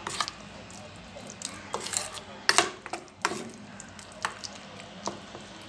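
Hand mixing wet ground coriander chutney paste in a stainless steel bowl: soft wet stirring with a few scattered light clicks of fingers against the metal bowl.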